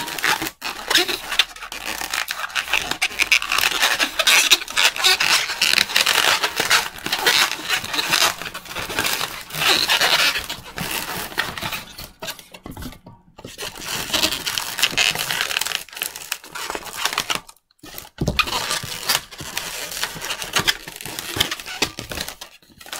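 Inflated 260Q latex modelling balloons rubbing and squeaking against each other and against the hands as they are twisted and locked together, in dense scratchy runs that break off briefly about halfway through and again at about three-quarters.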